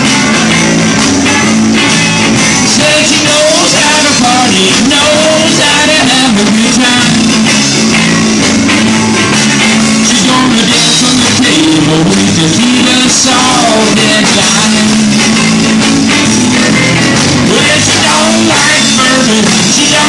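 Live rock band playing loudly: electric guitars over bass and a drum kit.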